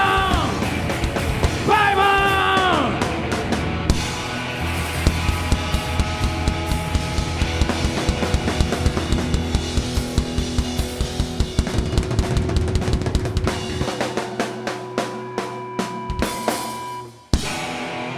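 Rock band playing live: a held, falling vocal shout twice in the first three seconds, then a loud drum-heavy instrumental outro with rapid kit hits over bass and guitar, which cuts off suddenly about seventeen seconds in with a final hit.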